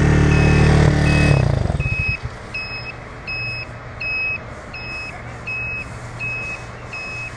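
Motorcycle engine running, then stumbling and dying about a second and a half in, stalling after the bike has gone down. A short high electronic beep repeats about every 0.6 s throughout.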